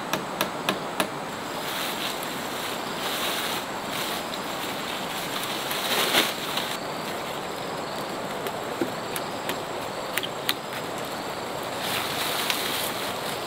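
Steady rushing outdoor noise with scattered light clicks, and a louder rustle about six seconds in.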